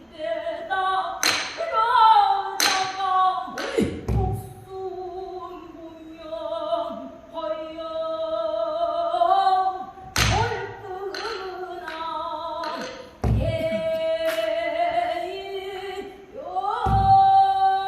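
Pansori singing: one voice holding long, wavering, ornamented notes, accompanied by sharp strokes on a buk barrel drum. The strokes come at uneven intervals, several in the first few seconds, a couple in the middle and more near the end.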